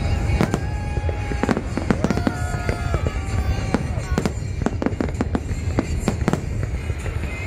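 Fireworks display: a rapid, irregular run of bangs and crackles from bursting aerial shells over a steady low rumble.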